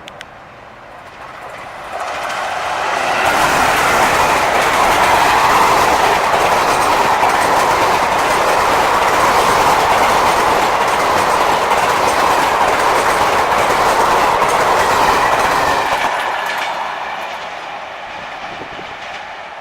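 Janta Express passenger train passing at high speed, its wheels running over the track with a creaking sound from the coaches. It builds quickly about two seconds in, stays loud for some twelve seconds, then fades away near the end.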